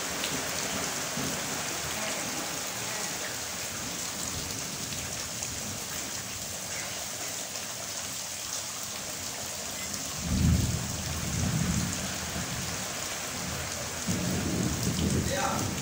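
Heavy rain pouring steadily onto the yard and pooling water. About ten seconds in a roll of thunder rumbles for about two seconds, and another low rumble of thunder begins near the end.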